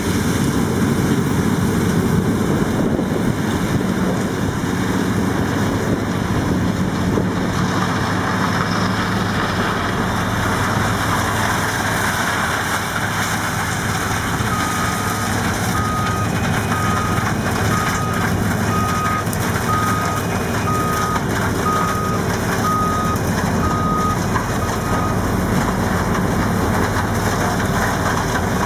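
Heavy farm machinery's diesel engines running steadily during a maize harvest. In the second half a reversing alarm beeps about once a second, roughly ten times, then stops.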